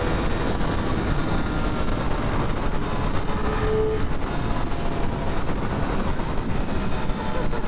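Motorcycle riding at speed: wind rushing over the helmet-mounted microphone, with the engine running underneath.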